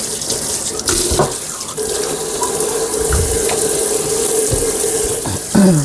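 Water running steadily from a kitchen tap into the sink, with a steady tone under the rush of water.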